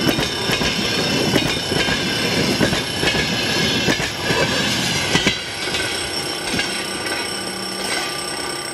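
Passenger coaches rolling past at speed, wheels clacking over the rail joints with a rushing rumble. The last coach clears about five seconds in and the noise drops away. Under it a level-crossing warning bell keeps ringing steadily.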